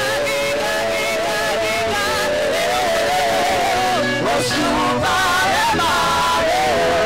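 Gospel praise team singing into microphones over music, the voices sliding and wavering in pitch in long, held melodic lines.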